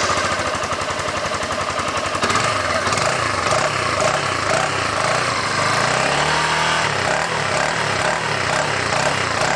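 Yamaha Fazer 150's single-cylinder four-stroke engine running through a Roncar Coyote TRS 2Way+ exhaust with its valve closed in the quiet setting, with a steady low pulse. About six seconds in the engine is revved briefly and drops back.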